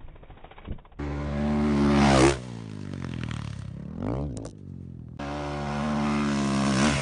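Dirt bike engine revving hard: the pitch climbs and then drops back, swells again briefly, and then holds at a steady run. It starts abruptly about a second in, with a sudden change again around five seconds.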